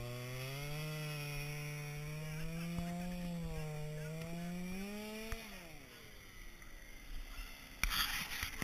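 A chainsaw runs at part throttle, its pitch wavering up and down, then winds down and stops about five and a half seconds in. A short, loud burst of noise comes near the end.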